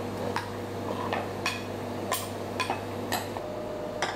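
Kitchen utensils clinking against a ceramic dish in short, sharp, irregular clicks, about one every half second, as stuffing is spooned into a raw turkey. A steady low hum runs underneath.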